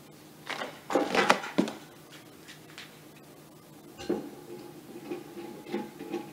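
Small screws and washers clicking and clattering as they are handled, loudest about a second in. From about four seconds in a power drill runs in short pulses, driving a screw into the metal table base.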